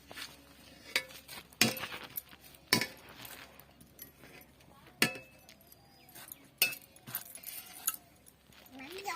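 Dishes and utensils clinking: about six sharp, separate clinks spread over several seconds, with soft scraping and rustling between them.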